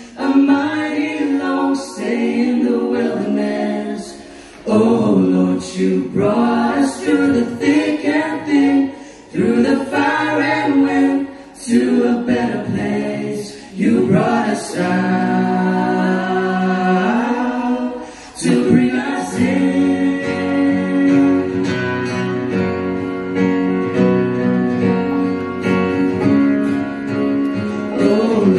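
Several voices, men and women, singing a gospel song in harmony to acoustic guitar accompaniment. The singing comes in phrases with short breaks between them, and in the second half the notes are held longer.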